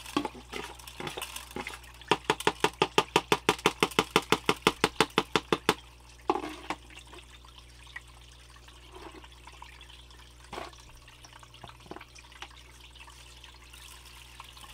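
Water sloshed by hand in a fast, even run of strokes, about six a second for three or four seconds, while paydirt is worked at a small sluice, then a few single splashes. A steady low hum runs underneath, in keeping with the sluice's water pump.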